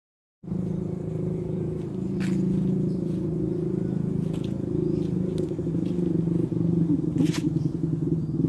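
Domestic cat purring steadily close to the microphone, a low, fast pulsing rumble that starts about half a second in, with a few short clicks.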